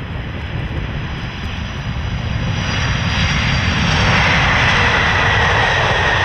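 Airplane engine noise, a steady rush that grows gradually louder, with a faint high whine joining in the second half.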